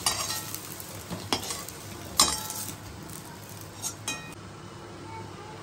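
A metal utensil scraping and clinking against a metal kadai while fried eggplant pieces are lifted out of hot oil, with a faint sizzle of the oil underneath. There are a handful of sharp clinks, the loudest about two seconds in, and they stop a little after four seconds, leaving only the faint sizzle.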